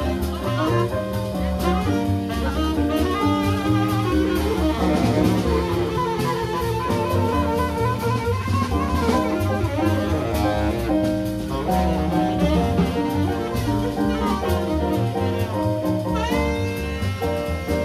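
Live jazz band playing: keyboard chords and a melody line over a drum kit keeping time on the cymbals.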